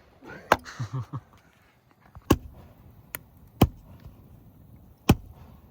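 Firewood being chopped: five sharp blows of a chopping blade striking wood at irregular intervals, one of them lighter than the rest.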